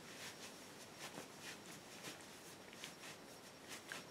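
Near silence: faint room tone with a few faint clicks and rustles.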